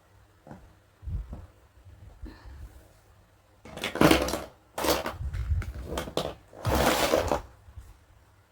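Plastic toy dentist kit pieces and their packaging being handled: light taps and clicks, then four louder rustling bursts in the second half.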